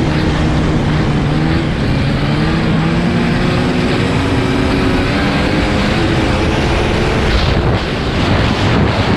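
1984 Yamaha Phazer's 485cc two-stroke twin running at speed under heavy wind and track noise. The steady engine note is clear for the first few seconds, then sinks into the rush of wind and track in the second half, with wind buffeting the microphone near the end.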